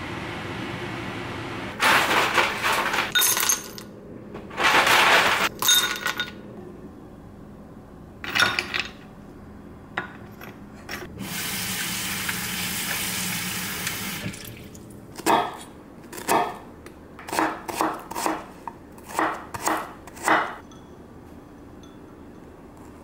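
Kitchen clatter of a bowl and ice, then a tap running into a bowl of ice water for about three seconds near the middle. A run of about eight sharp knocks follows.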